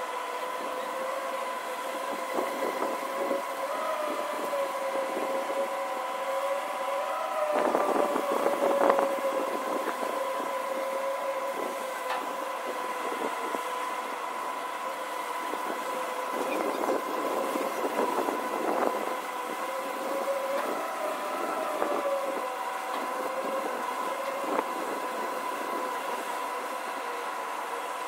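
SLJ900/32 mobile bridge erecting machine running as it retracts, with a steady mechanical whine that wavers slightly in pitch. Bursts of clattering and knocking come and go, loudest about eight to nine seconds in and again around seventeen to nineteen seconds.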